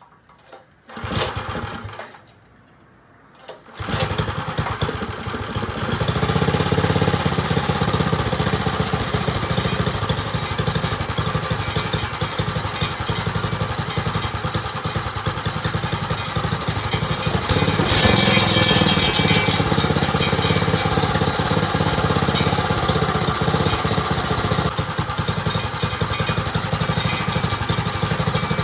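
Tillotson 9 hp single-cylinder mini bike engine on its first start after a rebuild. A short burst comes about a second in, then it catches about four seconds in and keeps running steadily, louder for a couple of seconds around eighteen seconds in.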